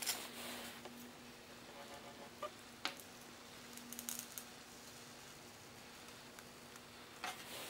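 Faint handling sounds of polystyrene foam blocks being pushed across a plywood table and against a hot-wire cutter's wire: soft rustles and a few light clicks and taps. A faint low hum comes and goes.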